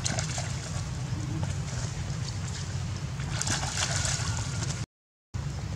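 Muddy water sloshing and splashing as a young monkey plays in a shallow flooded puddle, over a steady rush of water. There are louder splashes near the start and again past the middle. The sound cuts out for about half a second near the end.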